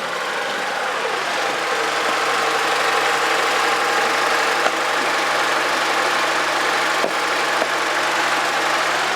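A vehicle's engine running steadily with an even hum.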